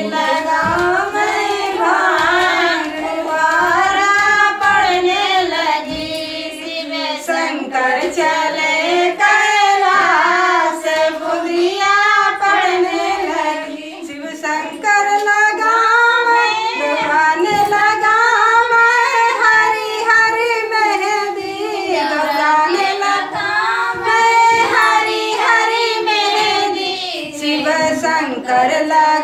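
A small group of women singing a Bagheli folk song (a Bhola geet) together, a sustained wavering melody carried by their voices, briefly softer about halfway through.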